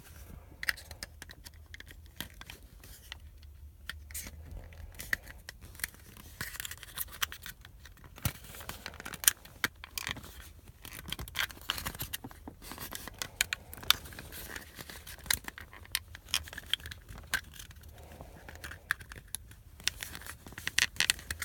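Plastic clicking and scraping as a Ford Flex window switch is pried and worked against the retaining tabs of its housing, with many irregular sharp clicks.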